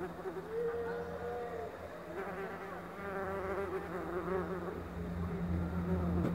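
Wasps buzzing in flight close by: a steady low hum with a wavering higher pitch over it, growing louder towards the end.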